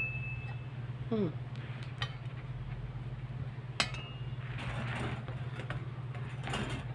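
Chrome-plated steel tubes of a dish rack frame clinking and knocking together as they are handled, with a sharp metallic clink just before the middle and a stretch of scraping and rattling near the end. A steady low hum runs underneath.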